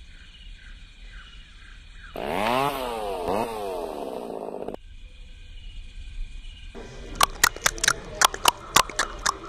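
A chainsaw running and revving for about two and a half seconds, its pitch dipping and climbing back twice. Near the end comes a quick run of sharp knocks, about five a second.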